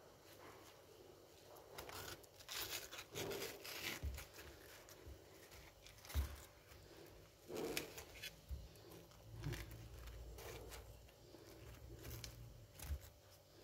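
Knife cutting through watermelon flesh and rind on a metal plate: faint, irregular crunchy cuts and scrapes with a few light knocks.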